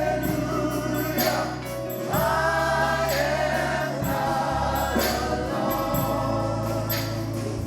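Congregation and choir singing a gospel song with organ and bass accompaniment, the held chords changing every second or two.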